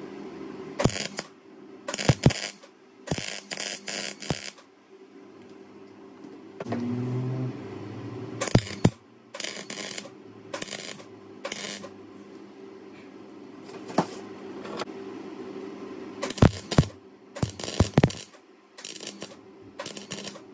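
Electric arc welding on a steel spotlight bracket: about twenty short bursts of arc crackle, each under half a second, laid down in quick clusters as stitch or tack welds. A steady low hum from the welder runs underneath.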